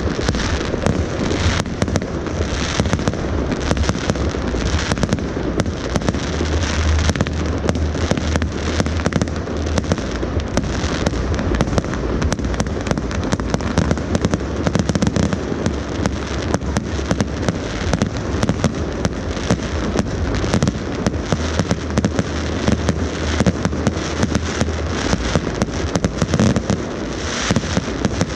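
Fireworks display: a continuous barrage of bangs and crackles, with shells bursting in quick succession.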